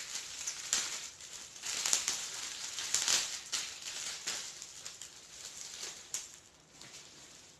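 Plastic bubble wrap crinkling and rustling as it is handled and unwrapped, loudest in the middle and dying down near the end.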